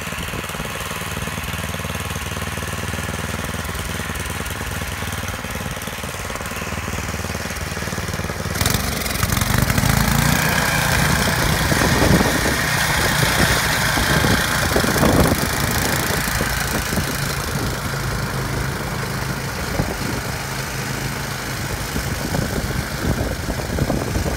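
Two-stage gas snowblower engine running steadily. About eight seconds in the sound jumps louder with a rushing hiss as the machine starts cutting into and throwing snow, and it keeps going at that level.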